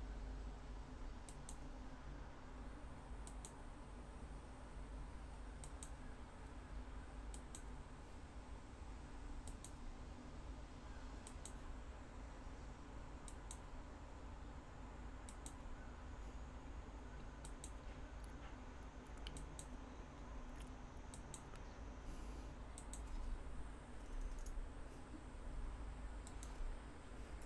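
Faint, scattered clicks from a computer being worked, coming every second or two and often in pairs, over a low steady hum.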